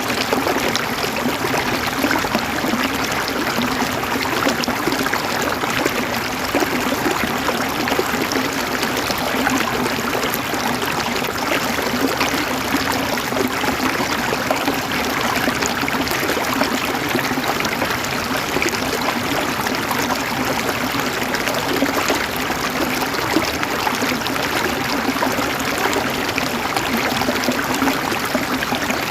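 River water flowing and gurgling steadily over rocks, a continuous even rush with fine splashing detail.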